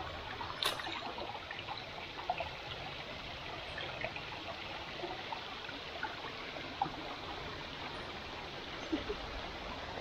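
Freshwater stream flowing steadily, with a few short clicks over the running water.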